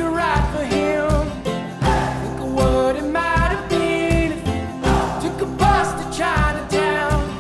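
Background song: a sung vocal over guitar with a steady beat.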